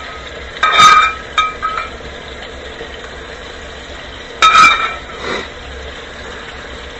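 Two ringing clinks of a kitchen utensil against a dish or pan, about a second in and about four and a half seconds in, each dying away quickly.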